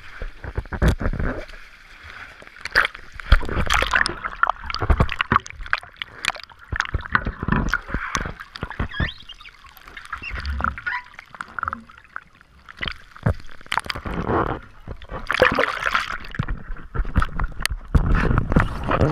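Water sloshing and gurgling against a camera bobbing at the surface, dipping in and out, with irregular splashes and sharp knocks.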